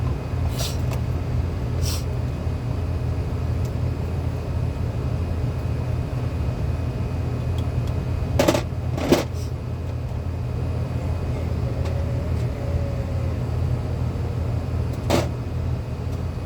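Steady low drone of running machinery, with a few sharp clicks and knocks: a pair about eight and a half and nine seconds in, others near the start and near the end.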